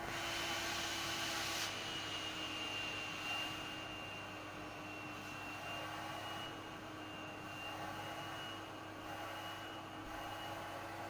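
Vacuum cleaner motor running steadily, a rushing airflow with a high whine over it; the rush of air is stronger for the first second and a half, then settles.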